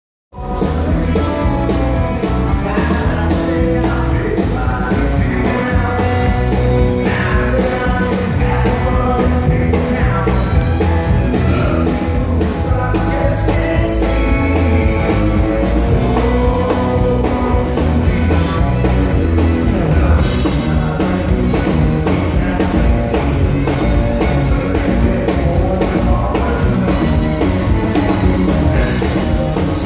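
A live country band playing an upbeat number with electric and acoustic guitars, fiddle and drum kit over a steady beat.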